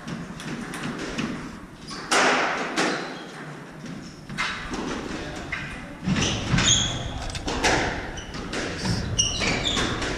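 A squash rally getting under way about two seconds in: a series of sharp hits as rackets strike the ball and it thuds off the court walls, with shoes squeaking on the wooden floor as the players run.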